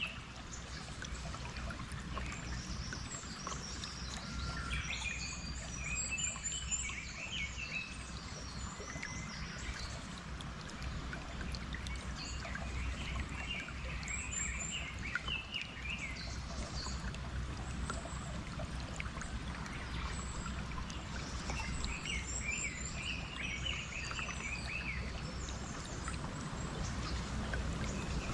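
Steady flowing-water ambience with birds chirping over it in short bursts of quick high calls, a few times across the stretch.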